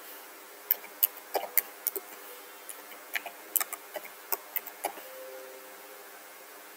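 Computer keyboard keys tapped while an email address is typed: a dozen or so light, uneven clicks that stop about five seconds in.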